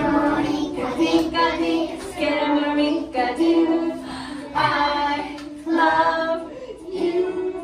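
A class of young children singing an English song together in short phrases with held notes.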